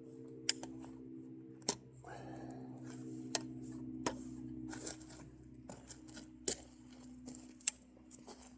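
Sharp handling clicks of homemade brass pinfire cartridges for an 8 bore rifle, about six of them spread a second or so apart, over a steady low hum.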